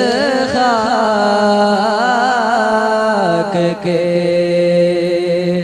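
A teenage boy sings a naat solo without accompaniment into a microphone. The first half is full of quick wavering ornaments on the melody. He then takes a short breath and holds one long steady note.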